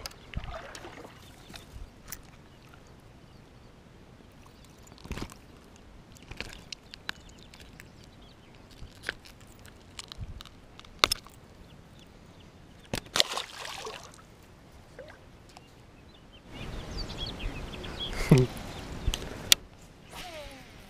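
Handling sounds at the water's edge: scattered clicks and knocks from a fishing rod and reel and a just-caught bass being handled, with some water sloshing. Near the end there is a louder rustling, splashing stretch of about three seconds.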